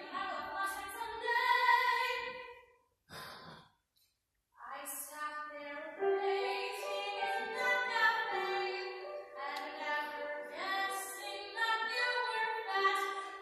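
A girl's solo voice singing a musical-theatre song in held, pitched phrases. About three seconds in she stops, takes a short audible breath, and begins the next phrase.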